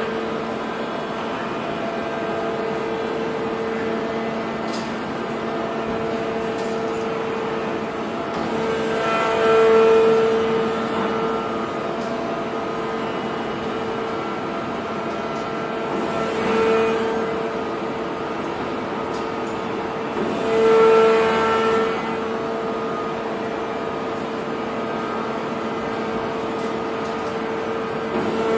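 Hydraulic forging press running with a steady, even-pitched hum, swelling louder three times (a little before ten seconds in, around seventeen seconds and around twenty-one seconds) as it works the hot steel billet.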